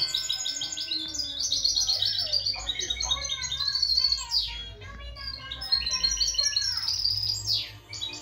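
A caged songbird singing a long, rapid, twittering song of quick repeated high notes and trills, broken by a few sharp downward-sweeping notes.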